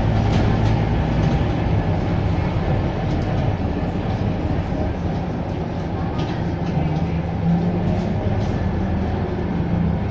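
Scania K230UB city bus's five-cylinder diesel engine running steadily on the move, its hum shifting slightly in pitch, with road noise and occasional light rattles.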